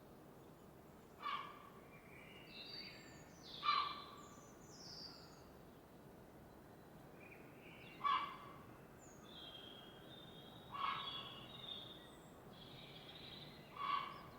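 Birds calling at dawn: one bird gives a short, loud call five times, every two and a half to three seconds, with softer high chirps from other birds in between, over a faint steady background hiss.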